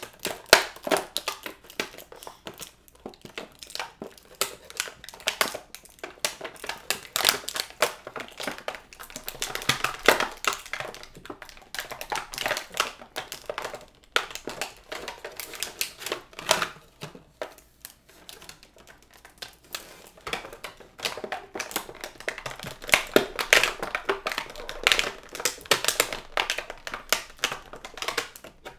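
Plastic packaging of a boxed action figure being handled and pulled apart: a dense, irregular run of crinkling and clicking that eases off for moments now and then.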